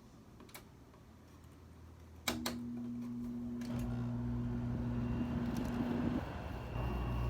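Kenmore window air conditioner, made by Frigidaire, starting up on low cool. A sharp click about two seconds in, then a steady hum with fan air noise that builds up and grows louder near the end.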